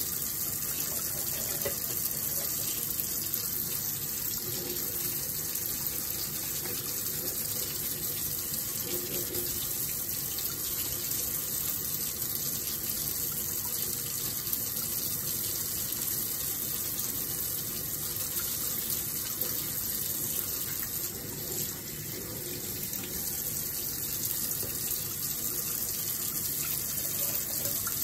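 Tap water running steadily into a stainless steel sink as metal nail tools are rinsed and scrubbed under the stream.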